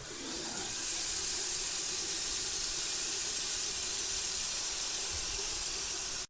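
Running water with a steady, bright hiss; it stops abruptly at the end.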